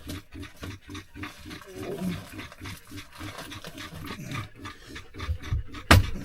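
A dog panting rapidly, about four breaths a second, with a sharp knock near the end.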